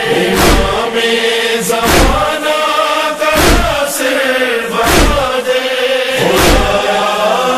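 A noha chorus chanting in long held notes, with a heavy thump marking the beat about every second and a half.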